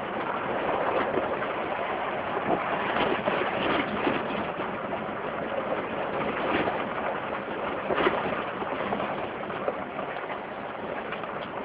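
Jeep Wrangler driving off-road: a steady noise of the vehicle running over rough ground, with a few short knocks, the sharpest about eight seconds in.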